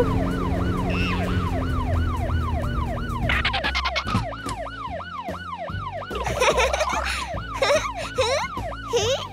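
Cartoon police car siren wailing up and down rapidly, about two and a half cycles a second, with a low steady hum beneath it that stops a little before four seconds in. Other cartoon sound effects, gliding whistles and clicks, join it in the second half.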